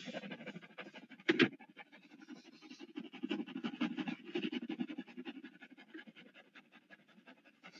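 Faint scratching and rustling made of many small quick clicks, with one brief louder sound about a second and a half in.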